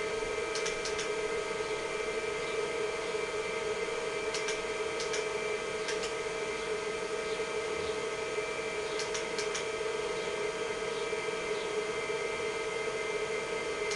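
An IBM PC XT (5160) running: a steady hum and whine from its power-supply fan and spinning MFM hard drive. A few scattered clicks from keys being pressed on the keyboard.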